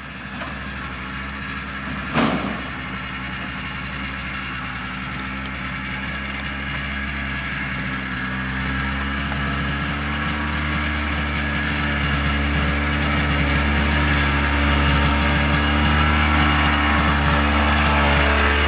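Polaris 250 4x4 ATV engine running steadily in low range under the load of a full wagon of wood rounds, growing gradually louder. One loud knock about two seconds in.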